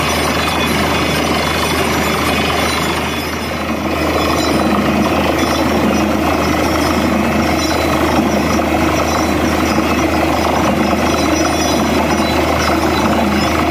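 Truck-mounted borewell drilling rig running, its engine and air-driven hammer drill making a steady, loud clattering din as it drills the bore. The sound dips briefly about three seconds in, then comes back louder.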